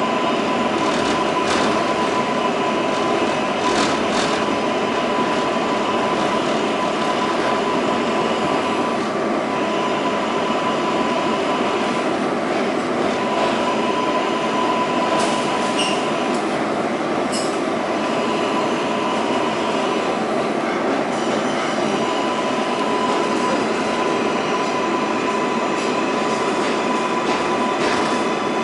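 R188 subway car running at speed through a tunnel, heard from inside the car: a steady rumble and rush of wheels on rail, with a whine that comes and goes and a few sharp clacks.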